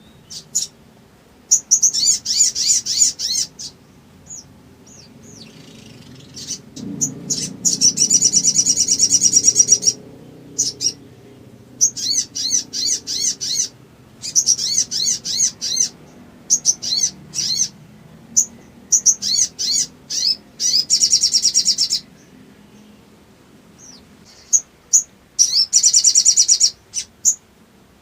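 Spiderhunter (sogok ontong) singing: series of sharp, high chirps broken by several long, fast trills, the excited full song used as a lure to set other birds calling.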